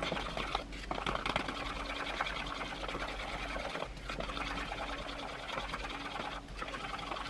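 Electric hand mixer running steadily, its beaters whisking a grainy butter and brown sugar mixture in a bowl.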